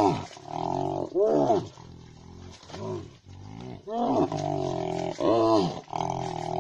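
Wild animal calls from spotted hyenas mobbing a hippopotamus: about five loud calls, each rising and falling in pitch over less than half a second, with steadier drawn-out moaning calls between them.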